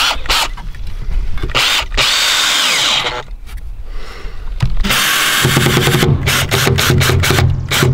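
Cordless drill driving screws into wood to mount door hinges: the motor whines in two runs, about a second and a half in and again from about five seconds, and the second ends in a quick string of clicks.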